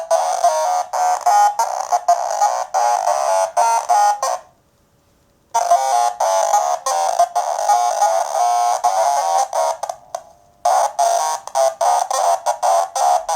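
Sequenced Eurorack synth line: a self-oscillating filter's sine squared up and run through the radiokoala PoodleGroomer module's resonant low-pass filter with diode clipping. It plays a fast stream of short pitched notes that step around in pitch. It cuts out for about a second just after four seconds in and briefly again near ten seconds.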